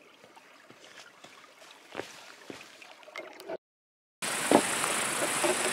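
Quiet footsteps and trekking-pole taps on loose rock, a few sharp clicks about two to three seconds in. After a brief dead silence, a much louder steady rushing noise with a hiss starts and carries on, with one knock soon after it begins.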